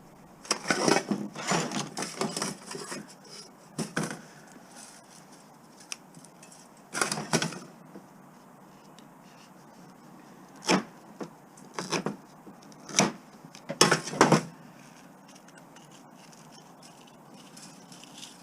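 Hand work on a scrap appliance motor: irregular clusters of sharp metal knocks, clacks and scrapes with quiet gaps between them, ending in a few single knocks.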